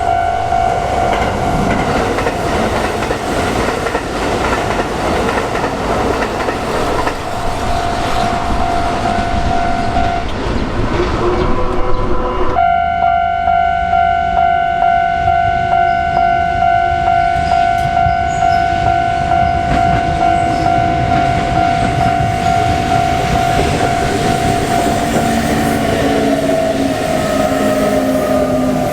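Japanese level-crossing warning bell ringing steadily as a Kintetsu electric train runs through the crossing, with wheels clattering and rumbling on the rails. The bell's tone is lost for a couple of seconds about ten seconds in, while the train noise is loudest.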